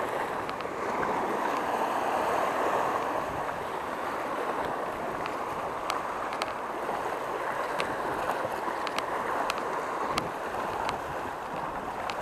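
Small sea waves washing over a rocky shoreline: a steady rushing of water, with scattered faint ticks from water splashing among the rocks.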